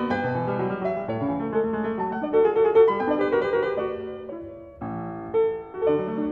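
Background piano music: a slow melody of held notes, dipping briefly about four and a half seconds in before it carries on.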